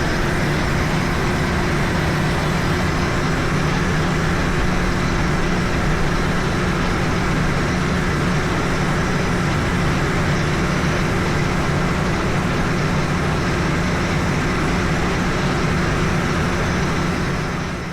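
Heavy machinery engine running steadily under load: a constant low drone over broad mechanical noise.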